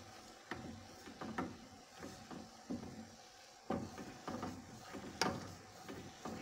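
Wooden spatula stirring a milk and caramelised-sugar mixture in an aluminium saucepan, knocking and scraping against the pot in irregular strokes, with the sharpest knock near the end. The stirring keeps the clumped sugar moving so it dissolves as the milk heats.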